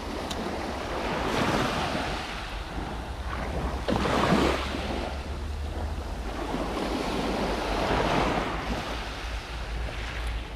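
Sea waves washing in against the shore, swelling about three times, with steady wind noise rumbling on the microphone.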